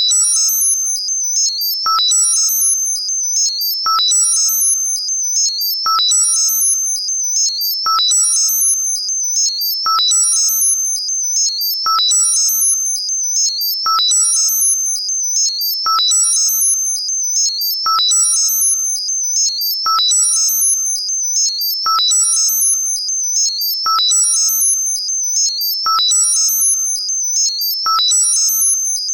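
Synthesized high-pitched tinnitus-masking sound: a dense cluster of high tones warbling rapidly, over a lower tone that sounds with a click every two seconds and fades.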